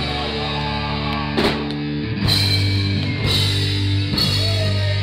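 A live rock band holding one sustained chord, with a drum hit about once a second.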